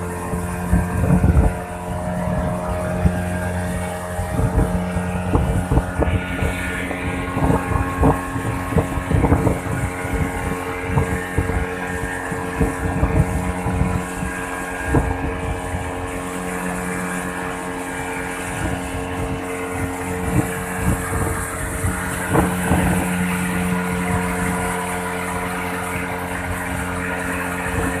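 Motorboat engine running steadily under way, with water rushing and splashing along the hull and irregular wind buffeting on the microphone.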